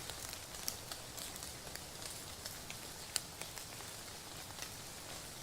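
Steady rain falling, with scattered raindrops ticking sharply close by and a louder tick at the very start.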